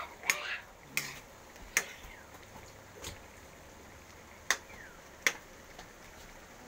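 A ladle knocking against a metal cooking pan while stirring: about six sharp, irregularly spaced taps.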